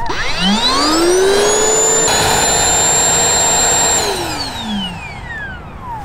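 Bosch GAS18V-12MC cordless 18 V dust extractor switched on in continuous mode. Its motor whine rises as it spins up and runs steadily for about two seconds, then falls away as the motor spins down after it is switched off.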